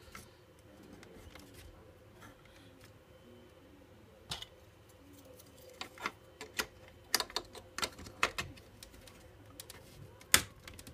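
Sharp clicks and taps of a 3D-printed plastic frame brace knocking against the acrylic top frame of an Anet A8 3D printer as it is pressed into place by hand: a scattered run of clicks in the middle, then a single louder click near the end.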